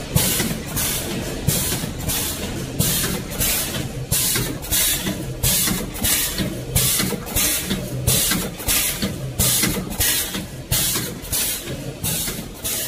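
Vertical form-fill-seal packing machine with a multihead weigher running, with a quick hissing pulse repeating about two to three times a second over a low hum.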